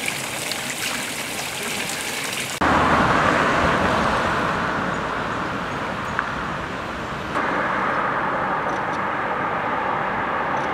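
Water running from a fountain spout and splashing, cut off suddenly about two and a half seconds in by louder, steady road traffic: cars passing on a city street. The traffic sound changes abruptly again about seven seconds in and carries on steadily.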